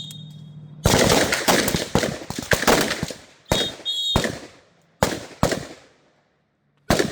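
A line of rifles firing on a shot timer's signal. The timer's tone trails off in the first second, then a fast, overlapping string of shots runs for about two seconds. A shot timer beeps twice about halfway through, and a few more separate shots follow, the last near the end.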